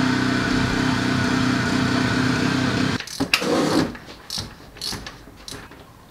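Power ratchet running steadily for about three seconds, spinning the new SST transmission filter into its housing, then cutting off abruptly. Scattered clicks and knocks of the ratchet and socket being worked by hand follow as the filter is snugged down.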